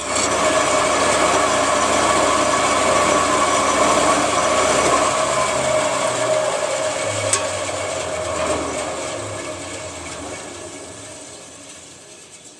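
Band saw running free with no wood in the blade, a steady motor and blade hum. A click comes about seven seconds in, then the sound fades steadily as the saw winds down.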